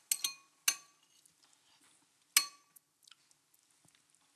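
Metal spoon clinking against a bowl while eating: three quick clinks in the first second and one more about two and a half seconds in, each with a short ring.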